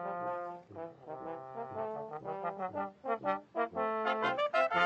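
Brass ensemble playing, with quick short notes in the middle and fuller held chords near the end.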